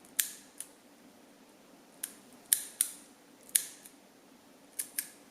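Metal four-colour ballpoint pen's slider mechanism clicking as the colour tips are pushed out and snapped back. There are about eight sharp clicks, irregularly spaced, some in quick pairs.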